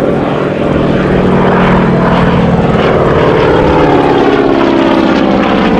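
Radial engine and propeller of a replica WWII Japanese warbird running at power on a low flyby. The engine note drops in pitch as it passes overhead.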